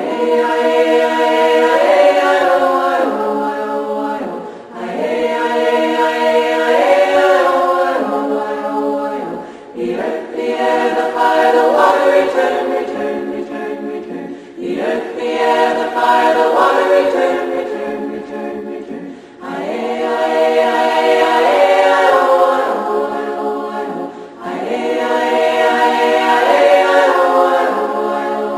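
A cappella choir singing, many voices together in sustained phrases of about five seconds each, with a short break between phrases, repeating through.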